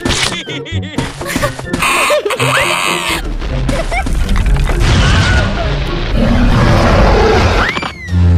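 Cartoon soundtrack: background music with comic sound effects, short sliding squeaks and hits for the first three seconds, then a loud rumbling crash from about three seconds in that goes on until a brief drop near the end.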